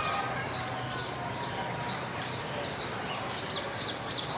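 A bird repeats a short, high, down-slurred call about twice a second, with the notes overlapping and coming faster near the end. Behind it are steady village background noise and a thin, constant high-pitched whine.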